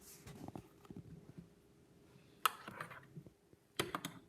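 Faint handling of the drink's cup and spoon, with one sharp clink about halfway through and two or three quick clinks near the end.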